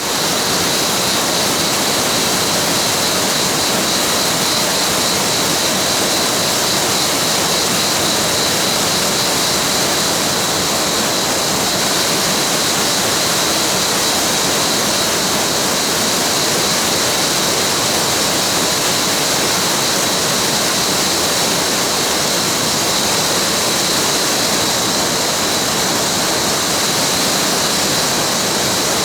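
Mountain waterfall: a steady, loud rush of falling water.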